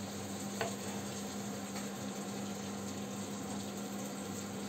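Steady low hum with a faint hiss of background room noise, and one faint tap about half a second in.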